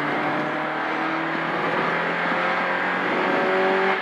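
Citroën Saxo VTS rally car's four-cylinder engine heard from inside the cabin, pulling hard at steady high revs with the pitch edging up. The engine note breaks right at the end as the driver changes gear.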